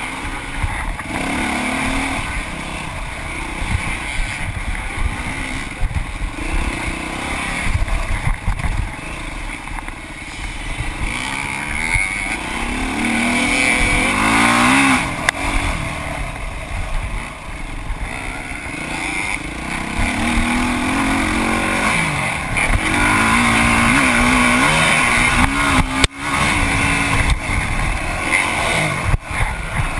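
Dirt bike engine under race throttle, its revs climbing and dropping again and again as the rider accelerates and shifts over rough trail. A couple of sharp knocks near the end.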